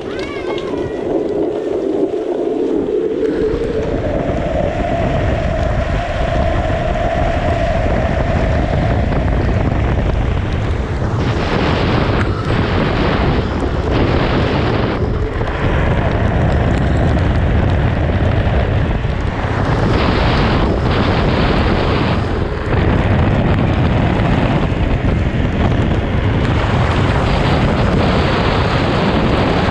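Wind buffeting the microphone as a drift trike runs fast downhill on a wet road, mixed with the hiss of its wheels on wet asphalt. The noise builds over the first few seconds, with several harsher surges in the middle.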